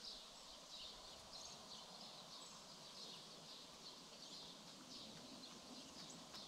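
Near silence, with faint, high, repeated chirps of small birds over a quiet background hush.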